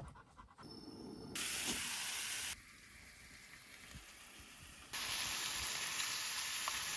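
Steady hissing and sizzling of food cooking on a portable camp stove, in short clips that cut in and out abruptly.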